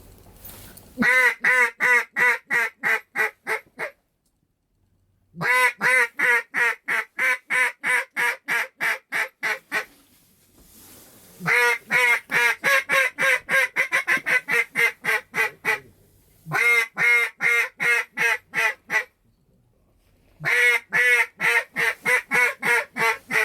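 Duck call blown in five runs of quick, loud mallard quacks, about four a second, each run a few seconds long with short pauses between: a hunter calling to passing ducks.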